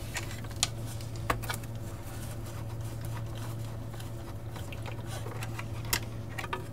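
Small clicks and light scraping from a hand screwdriver working a small screw on a circuit board, with fingers handling the board, and a few sharper clicks over a steady low hum.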